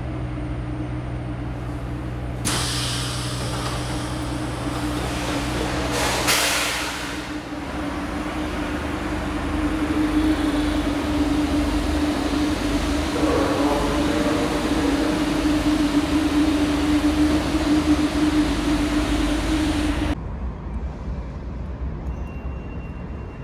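MBTA Red Line subway train: a steady hum, then louder running noise with a short burst of hiss about six seconds in, followed by continuous train and station noise over a steady drone. About twenty seconds in it cuts off suddenly to a quieter background hum.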